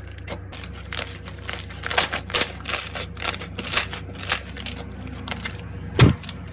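Slime being squeezed and pressed by hand, making irregular crisp crackles and sticky clicks, with one louder pop about six seconds in. A faint steady low hum runs underneath.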